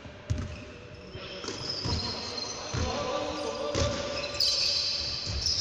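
A basketball bouncing on a hardwood court, about one thud a second, with high sneaker squeaks on the floor, the strongest from about four seconds in.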